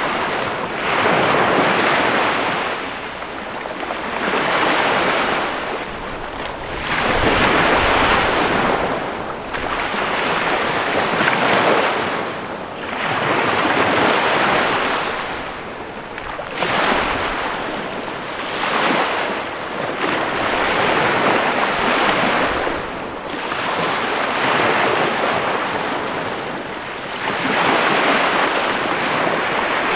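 Small waves breaking and washing up a sandy beach, a fresh rush of surf every two to three seconds.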